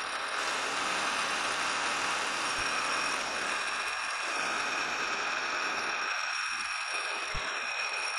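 Metal lathe facing off the end of a metal workpiece: the chuck spinning and the cutting tool shearing metal in a steady cut with a faint steady whine. This is a further facing pass to clean up the end face.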